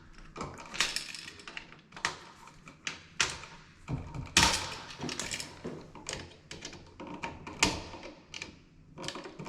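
Screwdriver tightening the terminal screws on a GFCI outlet: irregular clicks, taps and short scrapes of metal and wires being handled, with the sharpest knocks about four and a half and seven and a half seconds in.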